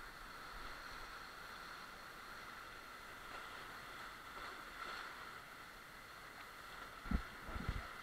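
River water rushing through small whitewater rapids, faint and steady, with a few low thumps near the end.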